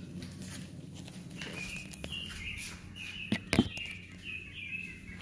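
A bird chirping in a quick run of short, slightly falling notes over a low steady hum, with two sharp knocks about three and a half seconds in.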